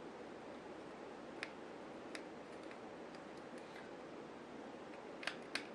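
Faint, scattered small clicks and taps from driving the small screws that clamp a beadlock ring onto an RC wheel, with two slightly louder clicks near the end, over a steady low hiss.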